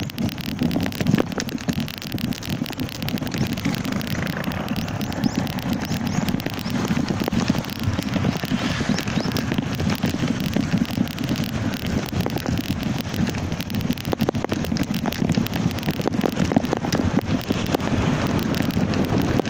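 Steady rumble and dense crackling rattle of a wooden sea kayak rolling on wheels over road pavement behind a bicycle, picked up through the hull by a camera mounted on the kayak.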